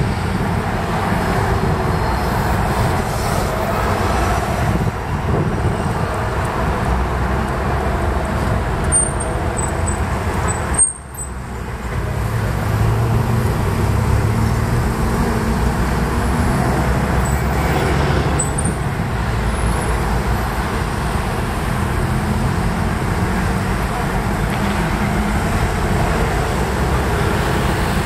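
City street traffic: cars and buses driving past in a steady wash of road noise, with a brief drop in the sound about a third of the way in.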